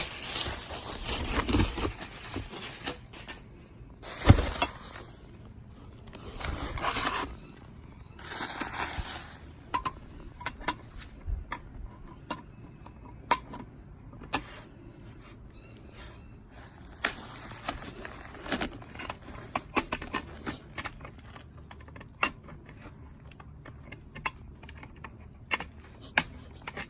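A package being unpacked: several seconds of rustling and scraping, then a long run of short, sharp metallic clinks and knocks as metal parts are handled.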